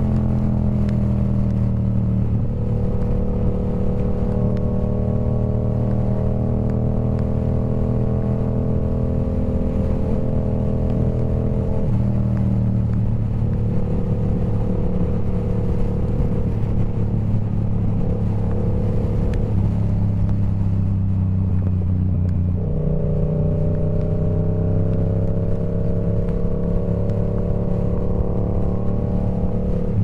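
Yamaha R7 motorcycle engine running through a TOCE full-system exhaust, held at fairly steady revs. Its pitch creeps slowly upward and jumps suddenly a few times.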